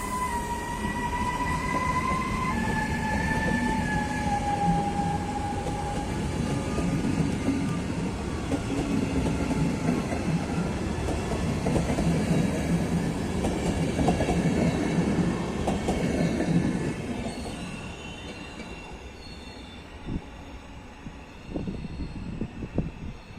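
ČD class 388 electric locomotive hauling a passenger train past: a high whine in two tones that steps down in pitch, then the rumble and clatter of the wheels over the rail joints, fading near the end. A few sharp metallic knocks come near the end.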